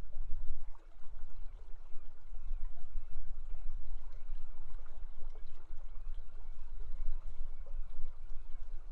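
River water rushing steadily, with a deep continuous rumble under it.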